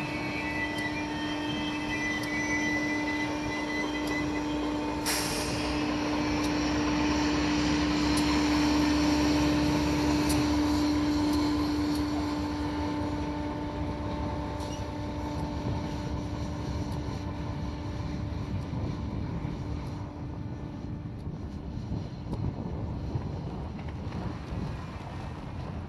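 A diesel locomotive pushes a railway snow plow car past at close range, running with a steady droning tone. The sound builds to its loudest as the locomotive goes by, then fades as the train moves away.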